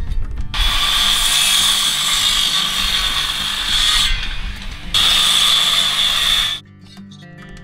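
Corded circular saw cutting through a 2x4 twice, one cut of about three and a half seconds and a second shorter one after a brief pause, with the saw stopping sharply near the end. These are the cuts for the angled corner gussets.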